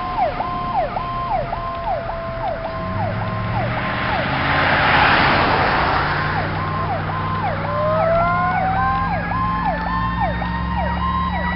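Fire apparatus sirens approaching on a highway: an electronic siren cycles about twice a second, while a second siren glides slowly down and then winds back up from about eight seconds in. Diesel engine rumble comes in about three seconds in, and a passing vehicle's rush peaks around five seconds.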